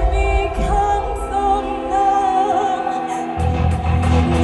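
Loud stage-show music over a theatre sound system: a sung, opera-like vocal line over sustained chords. The heavy bass drops away for a couple of seconds, then comes back in a little over three seconds in.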